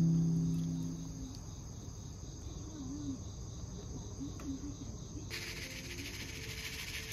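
Insects chirping steadily at a low level while the last guitar note of the background music dies away in the first second. About five seconds in, a soft rustling hiss joins them.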